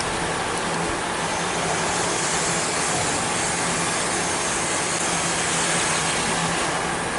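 Brake lathe running with a steady mechanical hum and hiss. A brighter high hiss comes in about a second in and eases off near the end.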